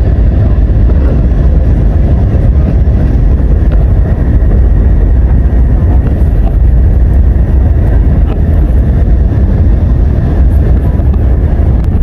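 Airliner cabin noise: a loud, steady, deep rumble of the engines and rushing air, with no let-up.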